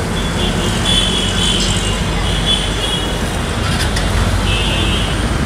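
Steady traffic rumble from a busy street, with faint high tones coming and going over it.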